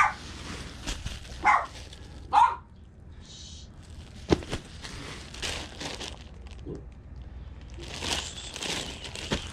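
Plastic shirt packaging and a plastic trash bag rustling and crinkling as clothes are handled, with scattered clicks. Three short dog yips come in the first few seconds.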